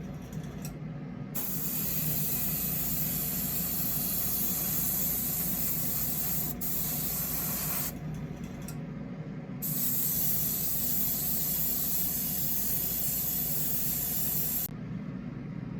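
Airbrush spraying thinned red paint in long hissing passes: it starts about a second in, breaks off briefly around eight seconds, then sprays again until shortly before the end, over a steady low hum.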